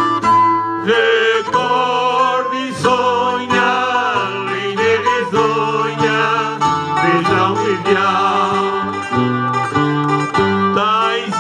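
Music: an instrumental passage between the sung verses of a Portuguese song, with plucked guitars playing.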